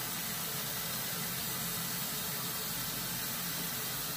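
Kitchen tap running steadily into a pot in the sink, filling it with water for boiling; the flow cuts off sharply at the end.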